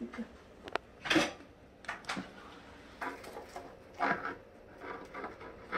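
Silicone spatula scraping hot caramel out of a small cast-iron pot, with a scattering of sharp clicks and light knocks of pot and utensil, the loudest about a second in.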